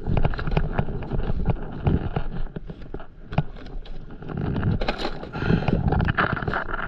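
Fishing gear being handled on an inflatable paddleboard: irregular plastic knocks and clacks from a tackle box and crate, with a fabric rustle about five seconds in as a dry bag is set down, over a low rumble.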